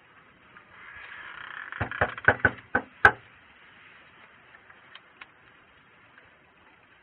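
Six firm knocks on a door in quick succession, about four a second, the last one the loudest, after a brief scraping just before.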